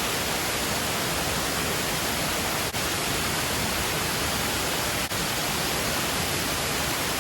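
Steady, even rush of a creek's falling water close by, with two brief dips.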